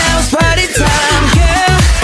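Upbeat electronic dance music with a steady beat, its low notes repeatedly falling in pitch several times a second.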